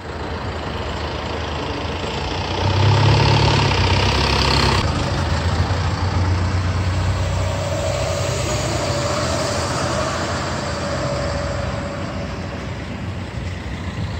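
Street traffic, with a minibus engine running close by and loudest a few seconds in.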